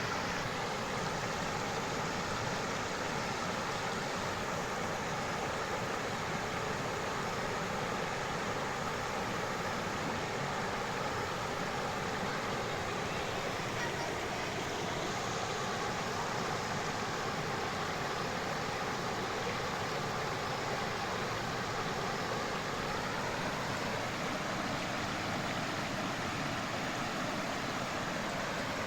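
Flowing stream water making a steady, unbroken rush.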